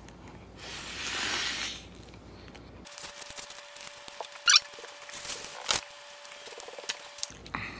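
Light eating noises from a large serving ladle in a bowl of food: a short rustling scoop about a second in, then a few sharp clicks and taps of the ladle against the bowl, with a faint steady hum underneath.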